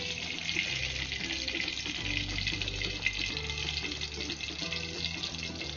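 Steady hissing noise, like running water, over low humming tones that shift in pitch every second or so.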